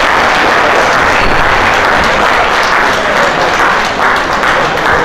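Audience applauding steadily, starting to die down near the end.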